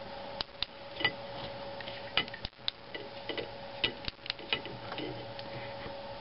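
Plastic meter probe tapping and clicking irregularly against a drinking glass of water as it is stirred for a reading, over a steady electrical hum.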